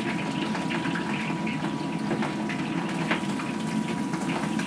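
Pieces of beef and lamb deep-frying in a wok of hot oil, a steady sizzling rush with scattered crackles and one sharper crack about three seconds in.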